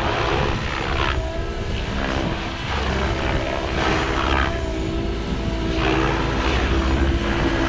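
Kraken 580 RC helicopter in flight: a steady pitched hum from the rotor and drive, shifting in pitch, with rushing swells of blade noise about once a second.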